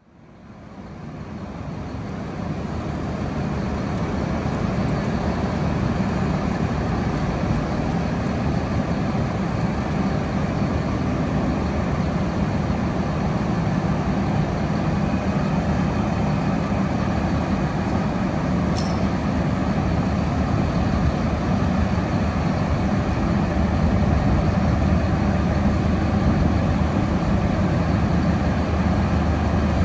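Diesel engines of road-surfacing plant, a tipper lorry and an asphalt paver laying tarmac, running steadily in a low drone that fades in over the first few seconds.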